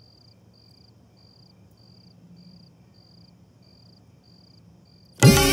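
A cricket chirping steadily in the background, one short trill a little under twice a second, over a faint low hum. Just before the end, loud traditional music with drums comes in suddenly.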